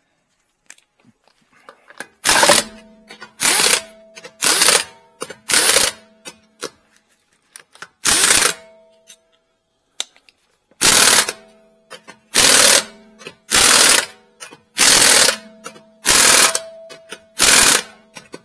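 Impact wrench running lug nuts onto a wheel in short bursts of about half a second, eleven in all, with a pause of a couple of seconds in the middle; a faint ringing tone lingers after each burst. The nuts are being run on snug, to be torqued by hand later.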